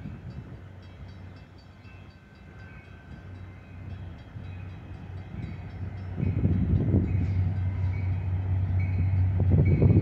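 Metra diesel locomotive approaching slowly, its low engine hum swelling louder over the last few seconds. A grade-crossing bell rings with evenly repeating dings, and wind gusts hit the microphone.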